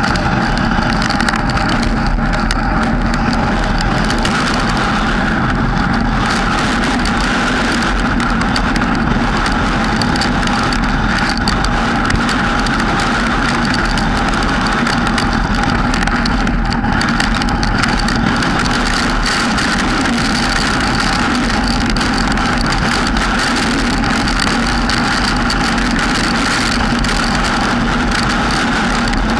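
Steady, loud drone of a car driving on a wet road, picked up by a GoPro mounted on the vehicle.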